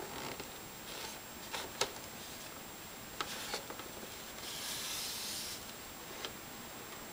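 Hands turning and handling a cardboard model kit box, fingers rubbing and sliding on the box. A few light knocks and clicks are heard, the sharpest just under two seconds in. A scratchy rustle lasting about a second comes just past the middle.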